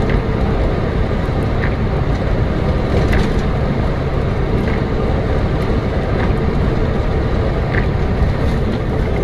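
Steady road noise of a moving vehicle: an even rumble of engine, tyres and wind, with no impact.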